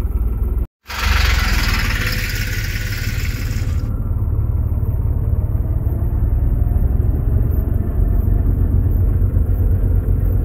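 New Holland 3630 tractor's diesel engine running steadily with its PTO engaged, driving a KSA straw reaper. A loud hiss lasting about three seconds follows a short dropout about a second in.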